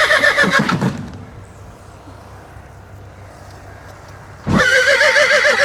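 Horse whinnying twice: a loud, quavering whinny fades out about a second in, and another starts near the end.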